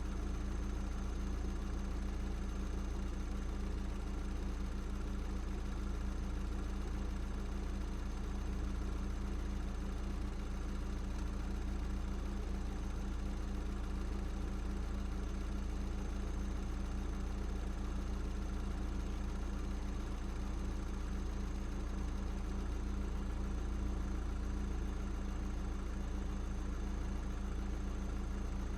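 Audi S3 8P's turbocharged 2.0 TFSI four-cylinder engine, fitted with an aftermarket downpipe, idling steadily.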